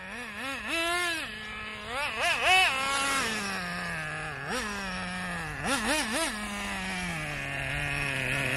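Traxxas Revo 3.3 nitro RC truck's small two-stroke glow engine running at low throttle and blipped up in a string of short revs. Its note sinks lower and steadier between blips as the truck slows.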